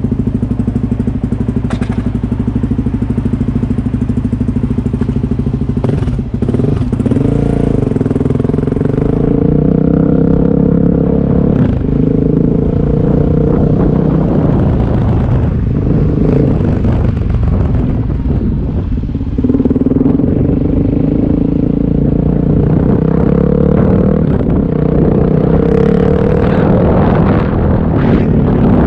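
Suzuki DR-Z400S single-cylinder four-stroke engine breathing through an MRD Z-Pro exhaust with its quiet baffle fitted. It runs steadily at idle for about six seconds, then pulls away and is ridden at low speed, the note rising and falling with the throttle.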